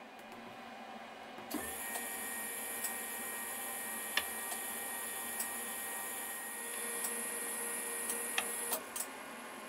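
Tool turret of an EMCO PC Turn 50 mini CNC lathe, its motor running to index the turret to a new tool position: a steady whine with scattered clicks, starting about a second and a half in and stopping shortly before the end.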